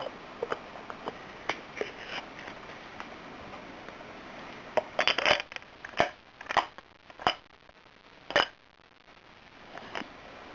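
Handling of a Maglite flashlight's metal barrel and parts: light scattered clicks as the switch assembly is pushed into the barrel, then a run of sharper clicks and knocks about halfway through.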